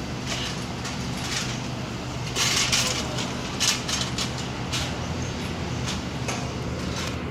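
Steady low hum inside a car, with scattered clicks and rustles over it and a louder rustle about two and a half seconds in.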